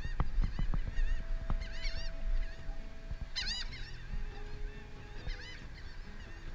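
Gulls calling in short bursts of repeated arching notes, the loudest burst about three and a half seconds in. During the first second and a half, a quick series of clicks and knocks from a metal sand scoop being shaken out.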